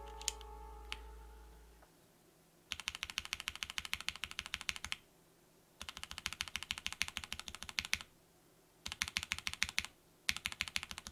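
A musical tone fades out over the first two seconds. Then a mechanical keyboard with lubed BOX Cream switches, a tape-modded aluminium plate and double-shot ABS keycaps is typed on in four bursts of fast keystrokes, with short pauses between them.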